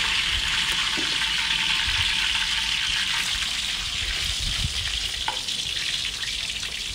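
Hot oil sizzling steadily in a steel wok with fenugreek seed mix and curry leaves frying, the sizzle easing slightly toward the end. A few soft knocks come from a wooden spatula as sliced onions and tomato are scraped into the oil.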